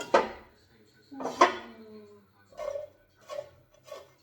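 Metal cookware and utensils clattering: two loud knocks about a second apart, the second ringing with a falling tone, then a run of lighter, evenly spaced knocks.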